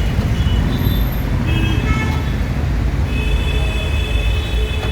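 Steady road-traffic rumble, with a faint horn-like tone sounding about three seconds in and holding to the end.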